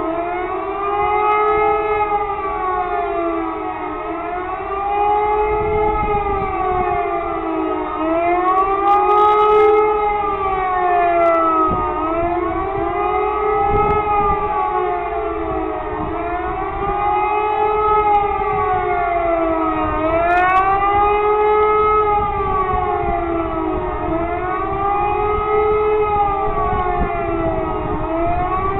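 E57 electromechanical civil-defence siren sounding the German public warning signal, a howling tone that rises and falls in pitch about every four seconds. During a siren test it means "warning of the population".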